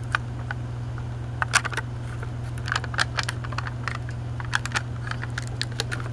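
Irregular small clicks and crackles of a jar of hazelnut chocolate spread being handled and worked open at its sealed lid, over a steady low hum.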